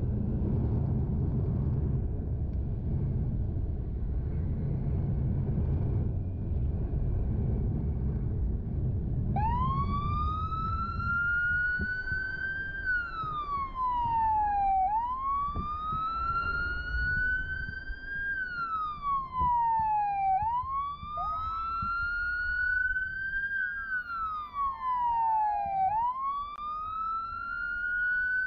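Motorcycle riding with engine and wind rumble, then about a third of the way in a wailing siren starts, rising slowly and falling back in cycles of about five to six seconds. A little past the middle a second siren joins, wailing out of step with the first.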